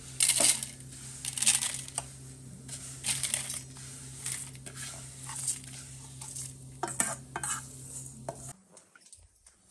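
A steel spoon scrapes roasted vermicelli out of a stainless steel kadai onto a steel plate: repeated scrapes and metal-on-metal clinks with the dry rustle of the vermicelli sliding. A steady low hum lies underneath and cuts off suddenly about a second before the end, leaving it nearly quiet.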